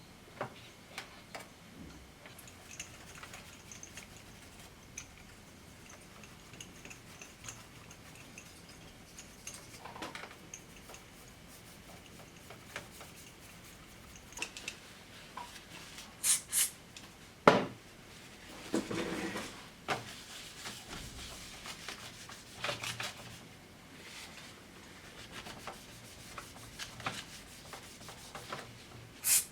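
Handling sounds from work on a small keyboard: scattered light clicks and rubbing, with a few louder scrapes and knocks past the middle and one near the end.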